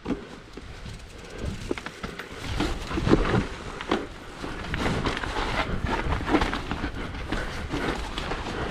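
Mountain bike riding fast down a steep, muddy trail: tyres through wet mud, and the bike clattering over rough ground in irregular knocks that get louder and denser about two seconds in.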